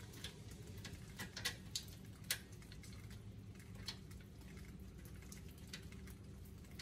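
Scattered light metallic clicks and taps of a wrench on a brake line fitting as it is worked to start threading in, the sharpest few about one to two and a half seconds in, over a faint low hum.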